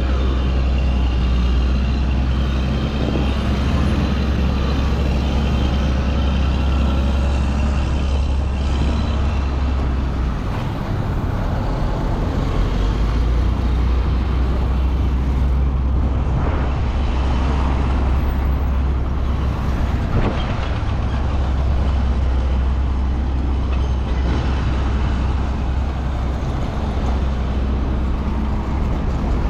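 Road traffic with heavy vehicles such as trucks passing and running: a steady low rumble that eases briefly about ten seconds in.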